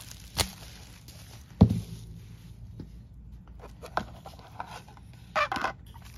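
Items handled on a marble countertop: a light knock, then a solid thunk with a short low ring about a second and a half in as a glass bottle of body oil is set down. A few light taps follow, and a brief scrape and rustle near the end as the lid comes off a small cardboard jewelry box.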